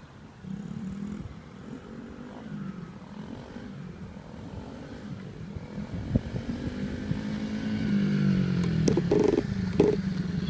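Coolster 70cc dirt bike's small single-cylinder engine running while ridden through its gears. The engine note rises and drops in pitch several times as it shifts, and grows louder toward the end as the bike comes closer.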